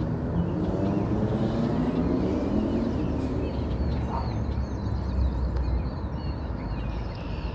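Low, steady drone of a distant motor vehicle, its pitch rising over the first few seconds. Small birds chirp faintly in the background.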